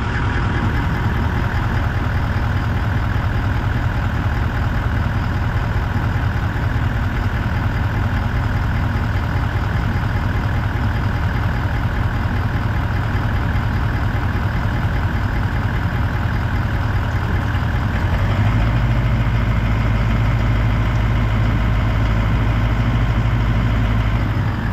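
Toyota LandCruiser 200 series 4.5-litre V8 turbodiesel idling steadily, heard from underneath the vehicle, warm for checking the automatic transmission fluid level at the check plug. About three quarters of the way through, the low drone deepens and gets stronger.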